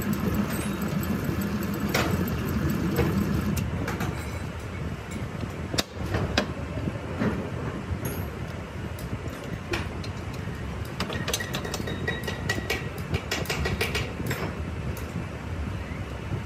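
Steady workshop machine running noise, a little louder for the first few seconds. Over it come a knock about six seconds in and a run of light metal clinks and knocks later on as a donkey water pump is handled and taken off its belt-driven rig.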